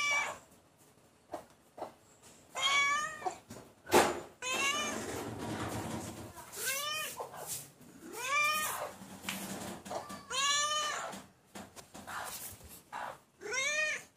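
Ginger domestic cat meowing repeatedly, about seven meows a couple of seconds apart, each rising and then falling in pitch. A stretch of rough, rustling noise fills the gap in the middle.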